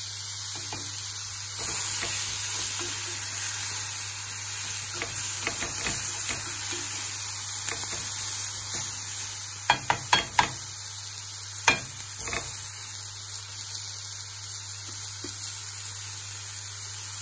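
Vegetables sizzling steadily in hot oil in an aluminium frying pan, stirred with a slotted spatula that knocks and scrapes against the pan in a quick cluster of strikes about ten seconds in and once more shortly after.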